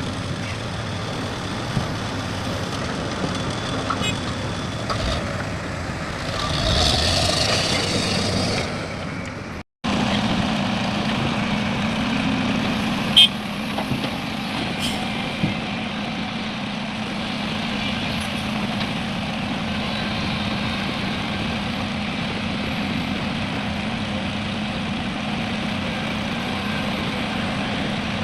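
Heavy diesel engines of excavators and dump trucks running at a loading site, with a loud hiss of air about a third of the way in. The sound breaks off for a moment, then the engine hum carries on steadily with a few short knocks.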